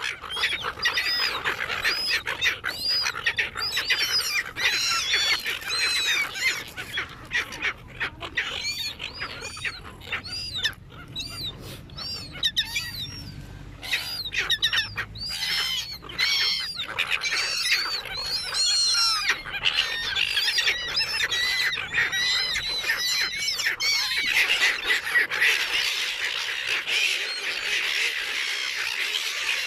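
A flock of seagulls squawking constantly, many short rising-and-falling calls overlapping, as the gulls squabble over food thrown to them. The calling grows denser and more continuous near the end.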